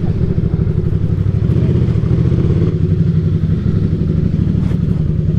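Motorcycle engine running at street pace, heard from the rider's seat, with a rapid, even beat from its firing.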